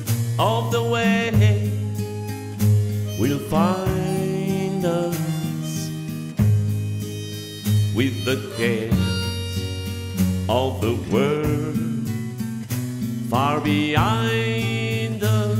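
Background music with a sustained low bass line under a melody of sliding, held notes.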